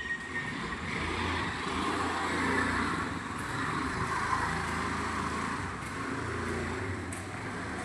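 Birds chirping over a steady background of road-traffic rumble and hiss.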